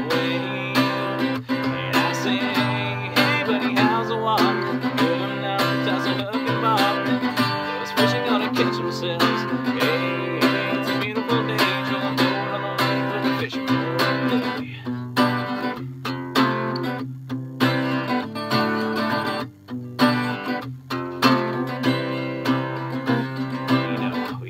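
Acoustic guitar strummed in a steady rhythm as an instrumental break in a country-style song, with a few short stops in the strumming in the second half.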